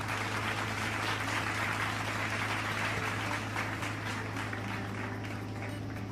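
Strong wind rushing steadily over an open fishing boat, over a steady low hum.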